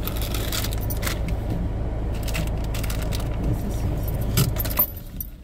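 Steady low rumble of a car idling, heard inside the cabin, with light metallic jingling and clinking over it. The rumble cuts off about five seconds in.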